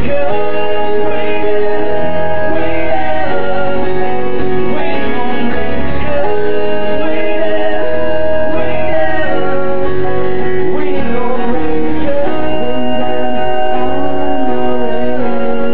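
Live acoustic rock performance: a sung vocal line with held, gliding notes over strummed and plucked acoustic guitar.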